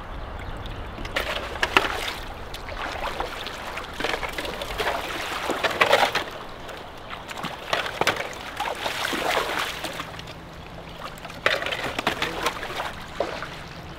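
Shallow canal water sloshing and splashing as a person wades through it and reaches in by hand, in uneven bursts with a few sharper splashes.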